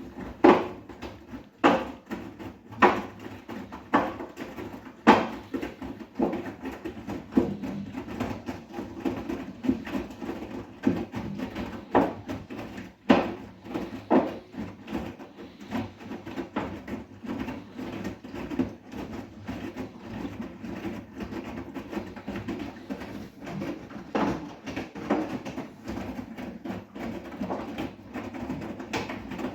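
Bosch WGA 252Z0TR front-loading washing machine turning its drum during a wash. Wet laundry thumps and water sloshes, with a sharp thump a little over once a second for the first several seconds, then a steadier churning with softer knocks.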